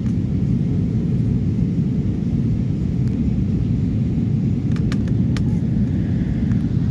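Airbus A320 cabin noise on final approach with flaps extended: the steady low rumble of the engines and airflow heard from inside the passenger cabin.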